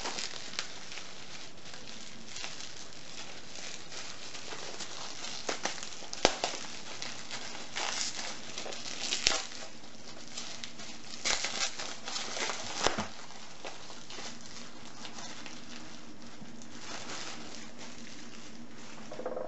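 Packaging rustling and crinkling as a parcel is unpacked by hand, with a few sharp knocks from the padlocks inside being handled.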